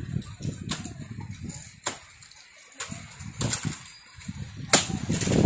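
Wind buffeting the microphone as a low, uneven rumble, with a few sharp cracks and snaps from around the palmyra palm's crown.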